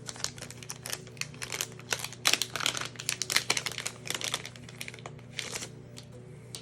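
Plastic crinkling in a rapid run of small crackles as the new replacement trackpad is handled in its packaging, dying away near the end.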